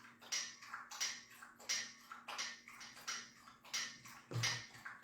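Quick rhythmic panting, about three breathy puffs a second, steady throughout.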